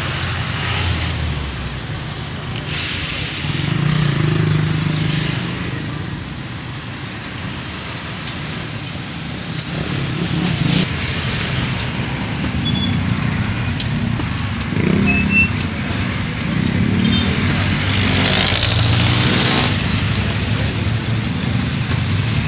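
Road traffic going past, with motor vehicles and motorcycles rising and fading over a steady street rumble. A couple of sharp clicks come about nine and ten seconds in.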